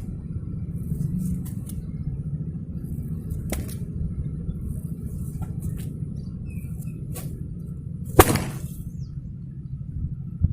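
A long pecut bopo, a jaranan whip braided entirely of raffia, being swung and cracked: two light cracks, then one loud sharp crack about eight seconds in, over a steady low rumble.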